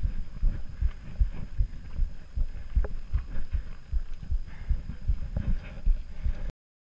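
Mountain bike rolling over a rough forest trail, heard through a GoPro: dull, muffled low thumps two or three a second as the bike jolts over roots and rocks, with a few faint rattling clicks. The sound cuts off suddenly near the end.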